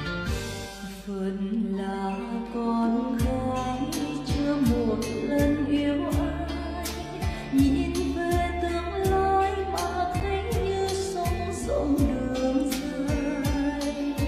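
A woman singing into a microphone over a backing track with bass and a steady beat.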